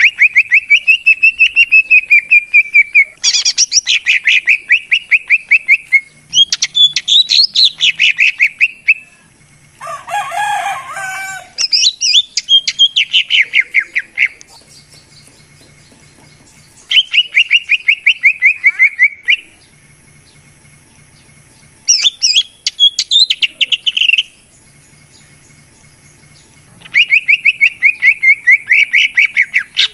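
Cucak ijo (leafbird) song used as a lure call: loud phrases of rapid trilled whistles, each two to three seconds long, repeated about seven times with short pauses between. About ten seconds in, a brief harsher, scratchy call breaks the pattern.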